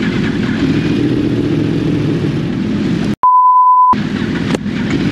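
Sport-bike engines running steadily while riding, cut about three seconds in by a steady censor bleep lasting under a second.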